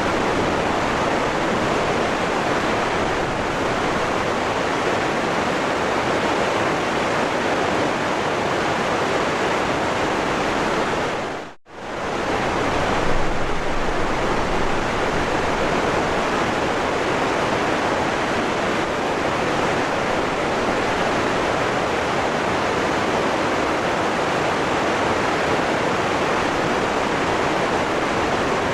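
Waterfall rushing in a steady, even roar of falling water. About twelve seconds in it fades out almost to silence for a moment and then comes straight back.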